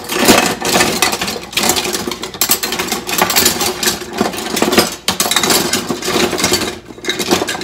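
Metal kitchen utensils clattering and clinking as a crowded utility drawer is rummaged through: a dense, unbroken run of knocks and rattles with brief lulls about five and seven seconds in.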